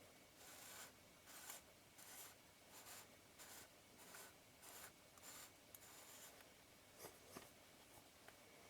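Faint repeated wiping strokes of a cloth rubbed over the metal helicoid thread of a camera lens, soaked in lighter fluid to clean it, a little more than one stroke a second, with two small ticks near the end.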